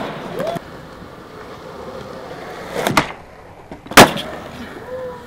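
Skateboard wheels rolling on concrete, with the tail snapping down to pop a flip trick about three seconds in and the board landing with a loud slap about a second later, then rolling on.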